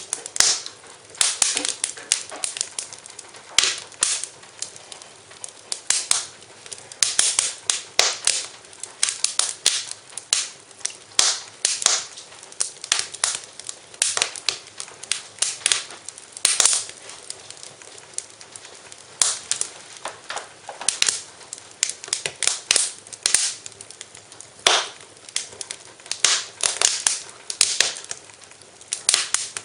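Wood fire in a fireplace crackling, with frequent irregular sharp pops and snaps over a soft hiss.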